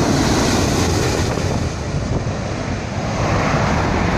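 Boeing 777 jet airliner on landing approach, gear down: a loud, steady engine rumble with the jet's noise spread across all pitches, and wind buffeting the microphone.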